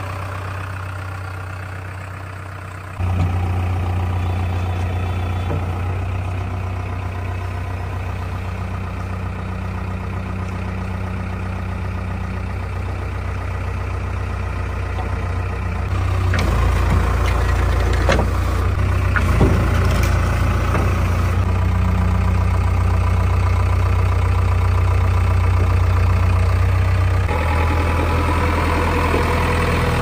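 JCB 3DX backhoe loader's four-cylinder diesel engine idling steadily, heard close up. It gets abruptly louder about three seconds in and again about halfway through, with a few light knocks soon after.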